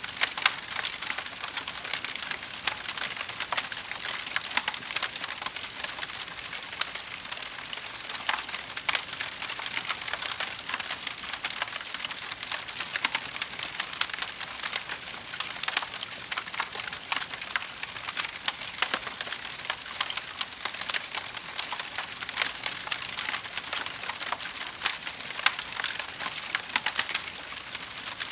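Fire crackling: a steady, dense stream of small sharp snaps and pops, mostly high-pitched.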